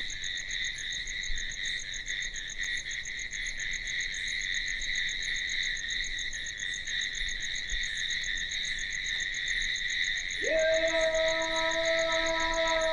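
Night insects such as crickets chirring steadily in several high, even pitches. About ten and a half seconds in, a long, steady low note with several overtones comes in over them.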